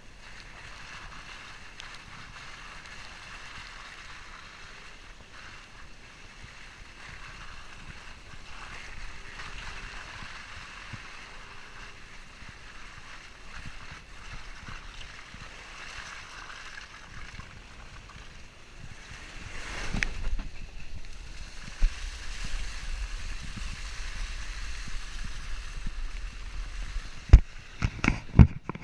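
Volkswagen Amarok pickup driving on a dirt track. Steady hiss of wind and tyre noise runs over a low rumble, and the rumble grows heavier about twenty seconds in. Several sharp knocks come near the end.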